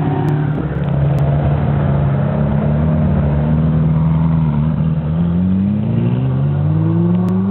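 Jaguar F-Type R's supercharged V8 held at high revs during a burnout, its pitch steady at first and then climbing over the last couple of seconds.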